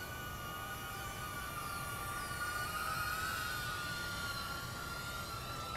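EMAX Tinyhawk III micro whoop drone's brushless motors and propellers whining steadily in flight as it comes down to land on a low battery. The pitch rises a little about halfway through, then eases.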